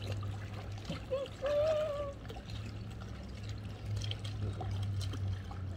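Pool water lapping and splashing lightly over a steady low hum. About a second and a half in there is a brief high-pitched voice sound.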